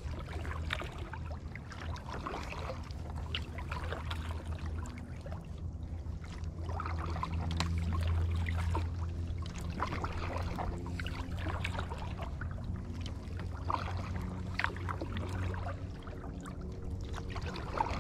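Water lapping and trickling against a kayak hull, with irregular small splashes and drips from paddling, over a low steady rumble.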